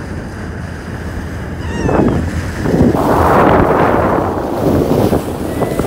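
Rushing wind and water at the bow of a moving boat, over the low steady hum of its engine. The rush swells loudly from about two and a half seconds in, with a brief faint squeak just before.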